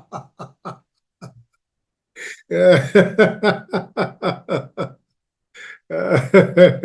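Deliberate laughter from a laughter yoga breathing exercise, in rhythmic ha-ha pulses about four or five a second. The first run tails off within the first second; after a pause a longer burst of laughing comes about two seconds in, and another near the end.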